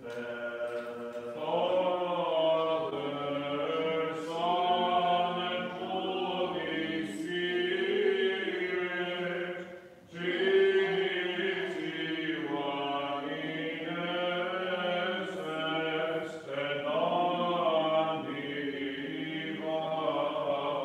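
Byzantine chant sung by the cantors at the chanters' stand: a slow, melismatic melody moving over a steady low held note (the ison), with a brief breath pause about halfway through.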